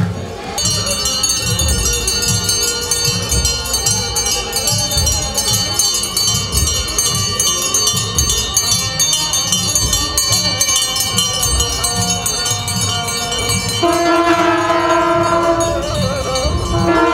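Hand bells shaken continuously in the procession, giving a rapid, dense jingling ring. Near the end, chanting voices join in.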